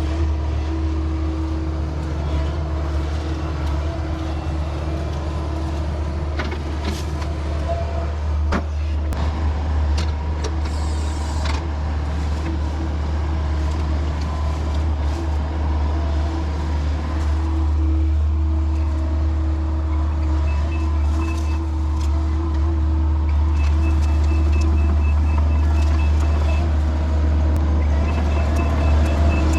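Large hydraulic excavator's diesel engine running steadily, with a few sharp knocks in the first half. In the last third, short runs of rapid high beeping come and go over the engine.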